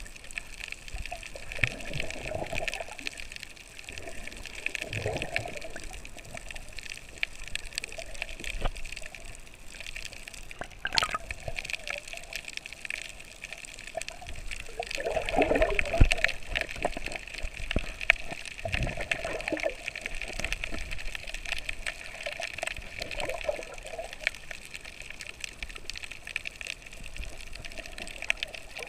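Water sloshing and gurgling around a camera held just under the surface while snorkeling, with irregular louder swells.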